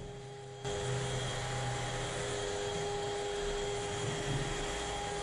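DeWalt cordless drill spinning a foam-backed sanding disc against a wet polycarbonate headlight lens: a steady motor whine with sanding hiss, stepping up louder under a second in and holding steady. The disc is 1000-grit paper taking the yellowed oxidation off the lens surface.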